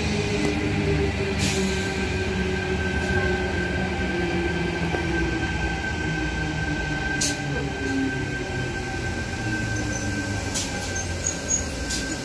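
Tangara electric train moving slowly alongside the platform: a steady rumble with motor tones that slowly drop in pitch, and a thin steady whine from about a second and a half in. A few sharp clicks fall through it.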